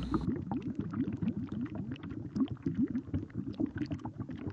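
Watery, bubbling sound effect: a dense, steady stream of quick little rising blips.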